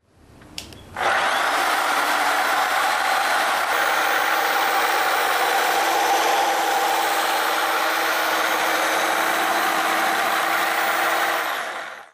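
DS301 handheld planetary polisher, driven by a FEIN electric polisher, running steadily on a concrete countertop during the final polish with 3000-grit dry resin pads: a constant motor whine over the hiss of the pads. A single click comes just before the sound cuts in about a second in, and it fades out near the end.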